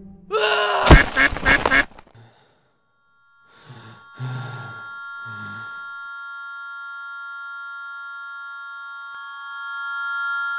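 Cartoon soundtrack: a loud, pitch-bending duck-like quack lasting about a second and a half, with a thud in the middle, then three short low sounds. A held, shimmering music chord follows and swells near the end.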